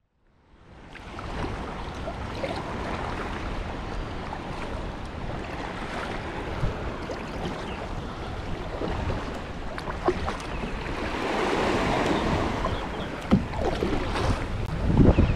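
Water sloshing and splashing around a kayak moving on open water, with wind buffeting the microphone. The sound fades in over the first second, and there are a few louder thumps near the end.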